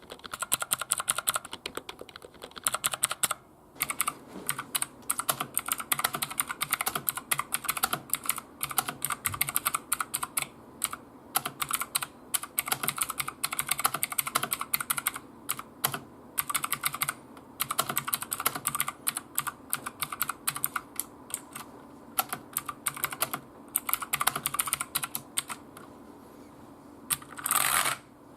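Typing on a cheap $10 Genius computer keyboard: fast runs of key clicks in bursts with short pauses. A brief louder rustle comes near the end.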